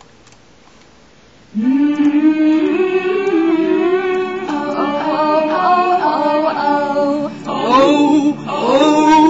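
Young women's voices singing a melody in held, stepping notes. The singing starts about one and a half seconds in, after faint hiss.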